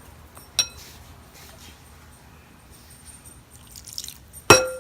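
Quiet handling noise with a small click about half a second in and one loud, sharp clink near the end that rings briefly.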